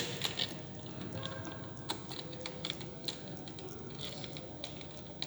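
Plastic cover of an HP 200 G3 all-in-one PC clicking and tapping as it is fitted into place: one sharp click at the very start, then scattered lighter clicks.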